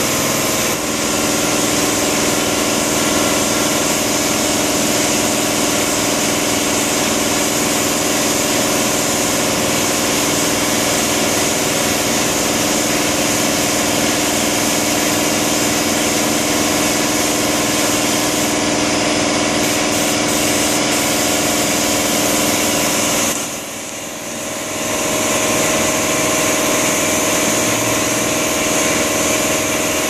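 A motor running steadily in the shop, a constant drone with hiss. It drops in level for a second or two about 23 seconds in, then comes back.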